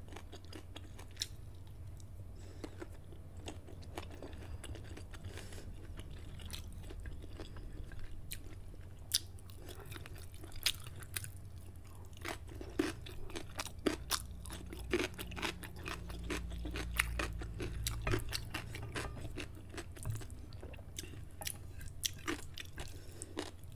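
A person chewing and biting food close to a microphone, a sausage and instant noodles: wet mouth clicks and small crunches scattered all through, over a steady low hum.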